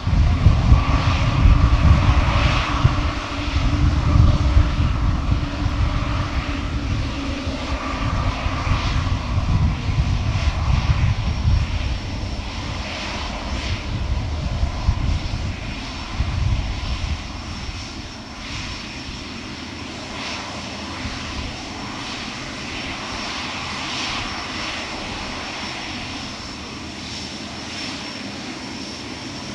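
Jet airliner's engines at high thrust close by: a deep, crackling rumble that starts abruptly, then eases off over about fifteen seconds into a quieter, steady noise with a thin high whine.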